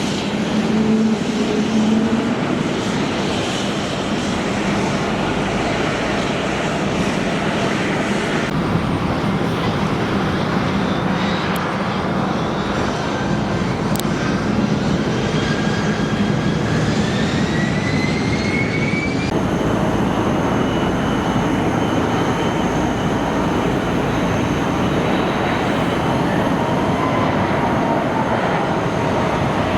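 Airliner jet engines running with a steady rushing roar. A thin whine climbs in pitch through the middle, as the turbines spool up. The sound changes abruptly twice.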